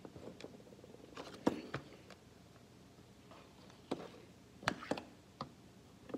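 Small toy hockey figures being handled on a tabletop hockey board: scattered sharp clicks and taps, several in the few seconds, some in quick pairs.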